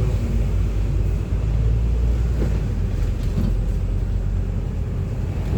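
A bus driving along, heard from inside the passenger cabin: a steady low rumble of engine and road noise.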